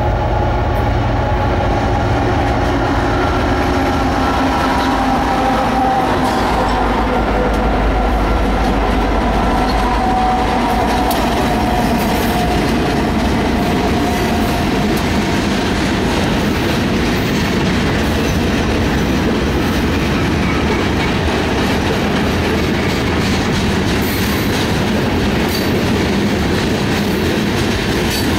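Multi-unit diesel-electric freight locomotives passing close by, their engines rumbling with a whine that drops in pitch as they go by. The freight cars follow, rolling past with the clatter of wheels over the rail joints.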